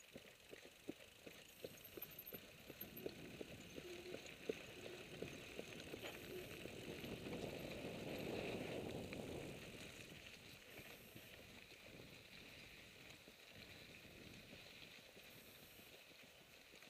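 Mountain bike rolling slowly along a dirt trail, quiet tyre noise on grit with scattered clicks and rattles in the first few seconds. The rolling noise swells around the middle, then eases off.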